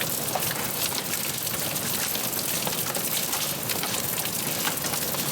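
Quarter-size hail coming down hard with rain: a steady heavy hiss broken by many sharp cracks of hailstones striking.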